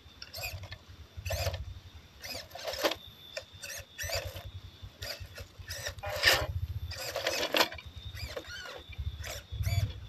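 WPL C24 RC pickup crawler's small electric motor and gearbox whining in repeated short bursts as it is throttled up over a rock.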